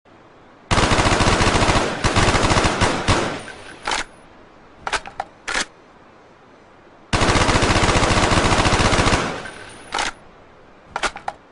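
Steyr AUG 5.56 mm bullpup assault rifle firing two long bursts of fully automatic fire, each lasting about two and a half seconds, with a few separate sharp clicks and cracks after each burst.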